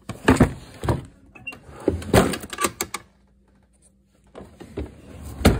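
Quick knocks, clatters and rustling of small household objects being rummaged through, with handling bumps on the phone, pausing for about a second past the middle.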